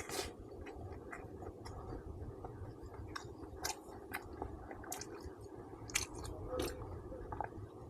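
A person chewing pork rib meat close to the microphone, with scattered wet smacking clicks of the mouth and teeth.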